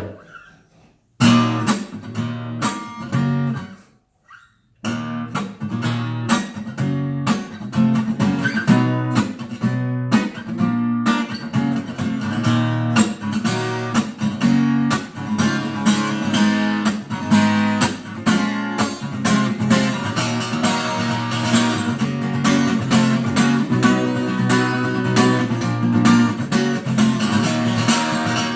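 Acoustic guitar strumming chords as a song's instrumental intro. It starts about a second in, breaks off briefly after a few seconds, then strums on steadily.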